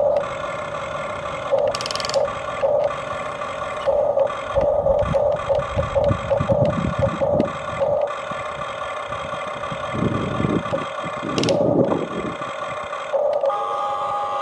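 Electric motors of a Huina 1593 RC excavator whining in short starts and stops as its arm, bucket and turret are worked. Stretches of scraping and rattling come in about a third of the way through and again near the end.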